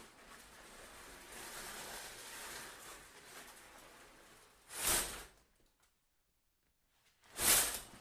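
Shower curtain pulled quickly along its rod twice, about two and a half seconds apart, each pull a short swish of the rings sliding, after a fainter, drawn-out rustling hiss in the first half.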